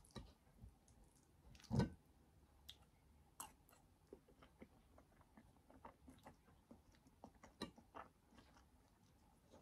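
Faint, irregular small clicks and taps, with one louder knock about two seconds in.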